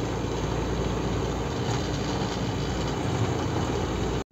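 Steady drone of a truck's engine and road noise heard inside the cab while driving. The sound cuts off abruptly at the very end.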